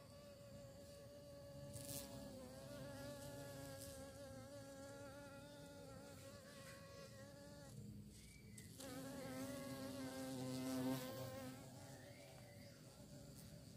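A bee buzzing in flight around flowers: a wavering, pitched hum that drops out briefly about eight seconds in, then returns louder, peaking near eleven seconds before easing off.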